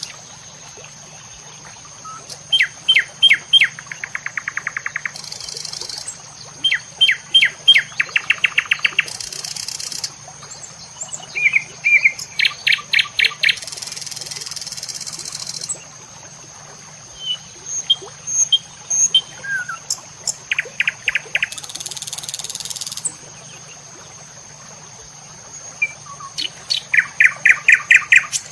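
Songbird singing repeated phrases, each a run of quick sharp notes that often ends in a fast trill, every few seconds. Behind it is a steady high whine, with several one-to-two-second bursts of high hiss.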